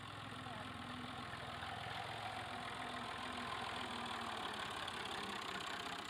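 Massey Ferguson 240 tractor's three-cylinder diesel engine running steadily.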